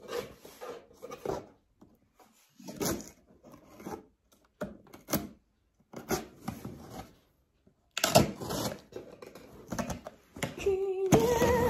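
Packing tape on a cardboard shipping box being slit with a knife and pulled away, in irregular bursts of scraping, rubbing and tearing of tape against cardboard, with a brief squeal near the end.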